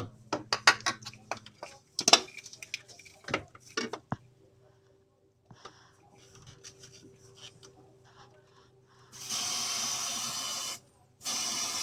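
Silicone lubricant sprayed from an aerosol can onto a Lada Granta's clutch pedal lever mechanism to cure a squeaking pedal: two bursts of steady hiss, one about nine seconds in lasting a second and a half, the second starting near the end. Before them come a few seconds of irregular clicks and knocks.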